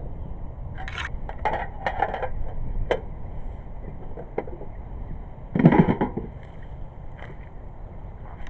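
Scattered knocks, clicks and scrapes from handling the jet ski's hull and parts, with one louder thump about five and a half seconds in.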